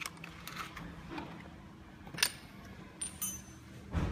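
Scattered plastic and metal clicks and taps from small parts being handled on a petrol chainsaw's opened engine housing, with a sharper click about two seconds in, a brief rattle a second later and a dull knock near the end.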